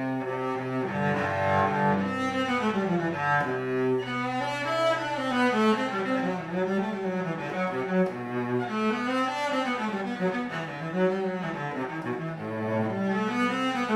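A 2015 Frederich Holtier cello, built after Alessandro Gagliano, played with the bow: a flowing melody that rises and falls, over a held low note for the first few seconds.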